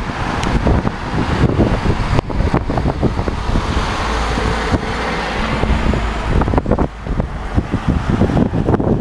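Strong gusty storm wind buffeting the microphone in a loud, low, irregular rumble, over the sound of cars passing on a multi-lane road below.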